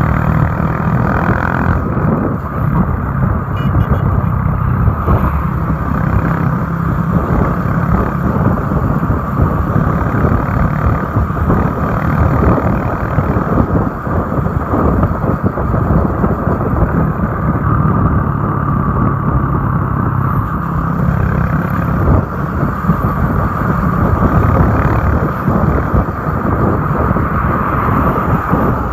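Motorcycle engine running steadily at cruising speed, with a continuous rush of wind over the microphone.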